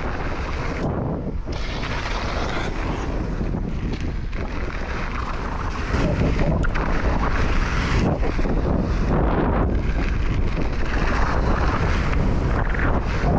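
Wind buffeting the microphone as a mountain bike is ridden at speed, a dense rushing noise that gets louder about six seconds in.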